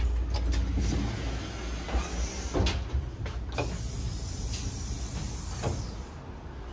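Power-operated sliding interior door of a Czech Railways passenger coach opening at the press of its button, with knocks and clicks, over a steady low rumble from the train. A high hiss starts about halfway through and cuts off suddenly near the end.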